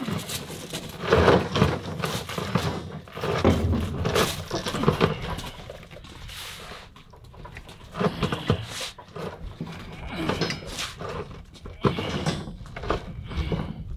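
Hand-operated lever rebar bender working steel rebar: irregular bursts of metal-on-metal noise as the bars are levered round the bender and shifted on the bench.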